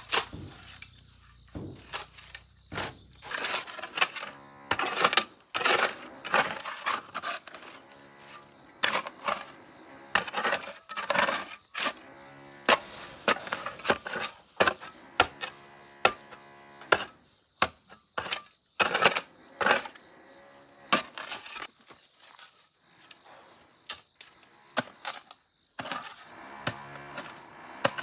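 Irregular scraping and knocking, one to three hits a second, some ringing briefly, over a steady high insect whine.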